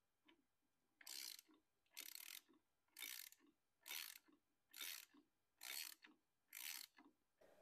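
Ratchet wrench clicking faintly in seven short bursts about a second apart, one on each back-swing of the handle, as it turns a nylon lock nut down onto a motorcycle clutch hub.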